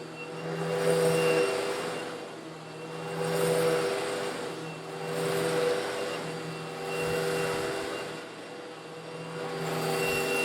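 Old Eureka vacuum cleaner running with a steady motor hum while it sucks up coarse stone granules slightly larger than sand. The gritty rush of the stones through the hose swells and fades about every two seconds.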